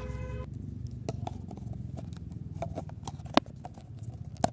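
Handling a paper cup of instant noodles: a plastic fork and a paper lid clicking and tapping against the cup. Light scattered clicks, then two sharper knocks near the end, over a low steady rumble.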